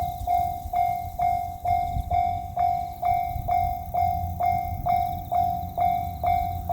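Japanese level crossing warning bell sounding 'kan-kan', an even, ringing tone repeated about twice a second over a low rumble.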